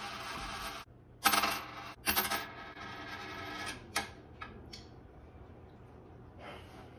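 A nickel landing on a hard tabletop: two sharp ringing metallic strikes about a second apart, then a few lighter clicks as it settles flat. A steady hiss cuts off just before the first strike.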